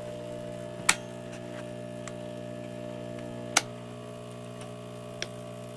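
Steady electrical mains hum, with three sharp clicks a couple of seconds apart, the first the loudest.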